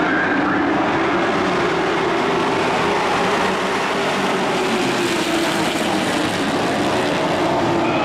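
A field of dirt-track race trucks running together around the oval, a steady mass of engine noise from the pack.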